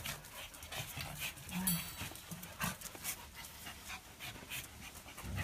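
A dog panting, about three quick breaths a second, with a brief high squeak about a second and a half in.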